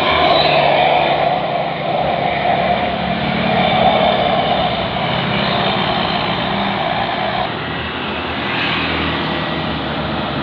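Diesel engine of a large bus running close by as it passes on the climb, with heavy road and engine noise; the engine note drops off about seven and a half seconds in.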